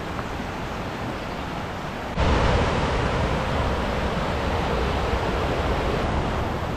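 Fast-flowing river rushing over rapids and a small weir, a steady roar of water running high after heavy rain. A quieter steady rush gives way abruptly about two seconds in to the louder, fuller sound of the white water.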